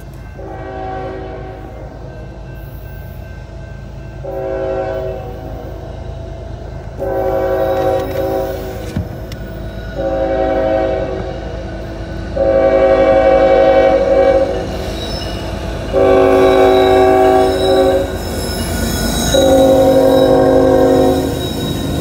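Norfolk Southern diesel locomotive's air horn sounding a chord in seven blasts for a grade crossing, the later blasts longer and louder as the train approaches. The rumble and rail noise of the oncoming train rise near the end.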